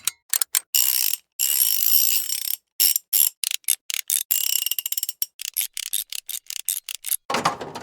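Gear and ratchet sound effects: a string of short mechanical clatters and clicks, each cut off abruptly, with a longer run of turning gears about a second in. In the second half the clicks come quickly one after another, and near the end comes a fuller, lower grinding turn.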